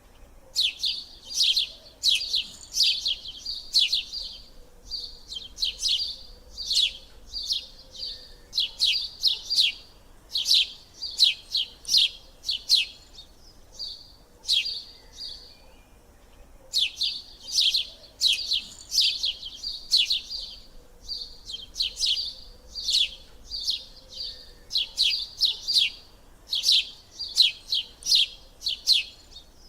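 A bird chirping repeatedly, with quick high-pitched chirps in runs of several at a time and brief pauses between runs.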